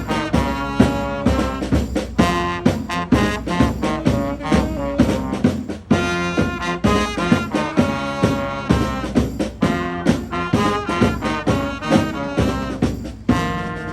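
Upbeat jazzy brass music with a steady beat, trombone and trumpet to the fore.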